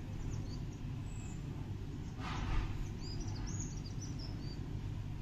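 Steady low background rumble with small birds chirping, a cluster of short high chirps in the middle of the stretch, and a brief soft swish a little after two seconds in.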